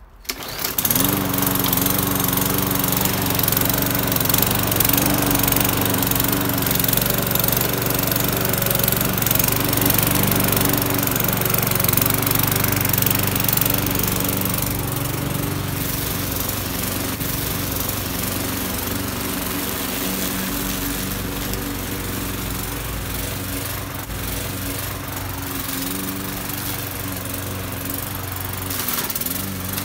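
Walk-behind rotary lawnmower starting up about half a second in, its pitch climbing as it comes up to speed, then running steadily while mowing grass. It grows a little quieter after about 14 seconds as it moves away.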